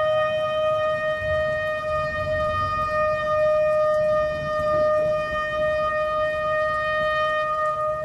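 Shofar (ram's horn) sounding one long, steady blast on a single pitch, with a faint low rumble underneath.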